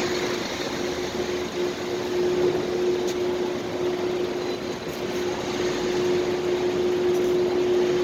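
Steady ambience of a supermarket car park: an even rush of noise with a constant low hum running through it.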